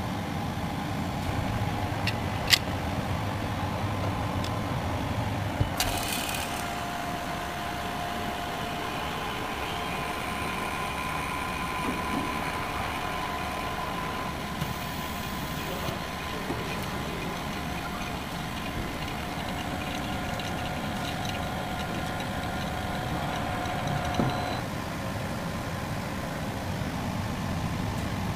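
Vacuum laminator running with a steady hum while its chamber is pumped down and held under vacuum. There is a click about two and a half seconds in and a short hiss of air about six seconds in.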